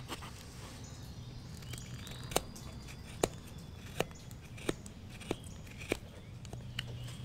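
Folding pocketknife blade cutting a notch into a green stick, making a series of about seven short, sharp clicks, one roughly every two-thirds of a second, starting a couple of seconds in.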